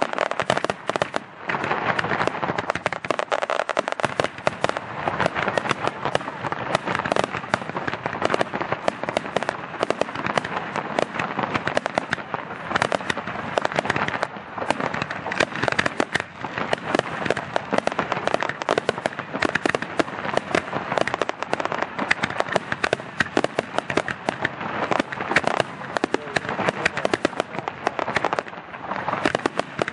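Display fireworks: aerial shells bursting in a dense, unbroken barrage, many bangs a second overlapping one another.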